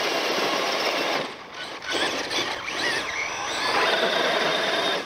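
Two 6S brushless RC monster trucks, a Traxxas Summit and a Traxxas X-Maxx, pulling against each other at full throttle on concrete: a loud whine of motors and drivetrains with spinning tyres. It eases off about a second in, with the whine rising and falling, then builds again before cutting off near the end.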